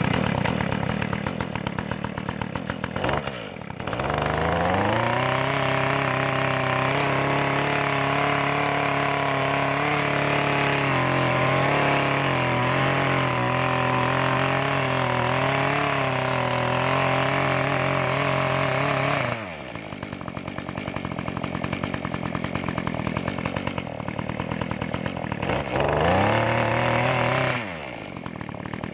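Mantis tiller's two-stroke engine, freshly fitted with a new carburetor, running after a start. About four seconds in it revs up to a high steady speed and holds it for about fifteen seconds, then drops back to idle. It revs up briefly once more near the end.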